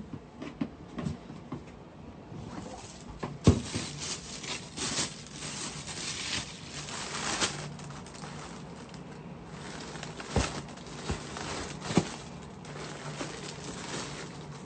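Tissue paper and a plastic bag rustling and crinkling as they are handled and unwrapped, with a few sharp knocks from handling the box. A low steady hum runs underneath.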